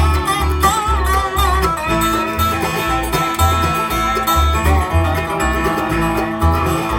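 Bluegrass band playing an instrumental break on banjo, mandolin, dobro, guitar and bass, with no singing. Bass notes fall about twice a second under the picked strings, and a wavering slid melody line comes in about a second in.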